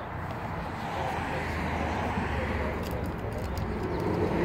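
Steady low vehicle rumble, with a few faint ticks about three seconds in.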